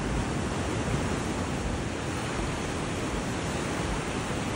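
Small ocean waves washing steadily onto a sandy beach, with a low rumble of wind on the microphone.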